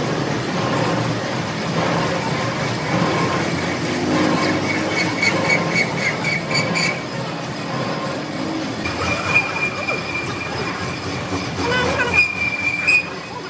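Heavy factory machinery running with a high-pitched metallic squeal, pulsing at first and then held steady for several seconds near the end.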